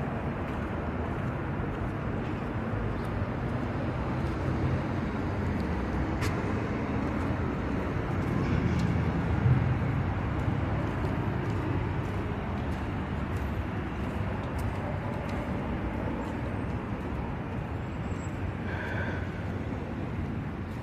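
Steady street traffic noise, a low rumble of vehicles that swells a little about nine seconds in.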